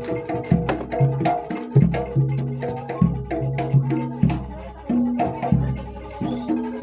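Jaranan Dor ensemble music playing in a steady rhythm. Deep drum strokes, the jidor in place of a gong, fall about once a second under repeating pitched percussion notes and sharp clicking hits.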